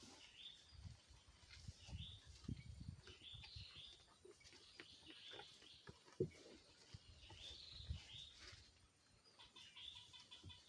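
Small birds chirping over and over, faint, with a short trill near the end, over low thuds and rustling and one sharp click about six seconds in.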